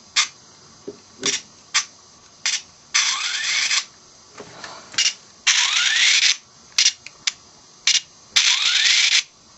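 Sharp plastic clicks from a Power Rangers in Space Battlizer toy being handled and its buttons pressed, and three short bursts of hissing noise, each with a rising whine, as the toy is set working.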